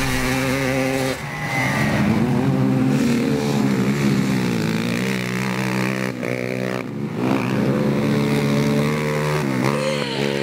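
Racing ATV engines revving, the pitch rising and falling over and over as the quads accelerate and shift.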